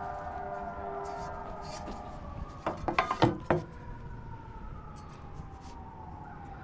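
Fire engine sirens sounding in the distance, a steady multi-tone wail whose pitch slowly falls. A short clatter of sharp knocks comes about three seconds in.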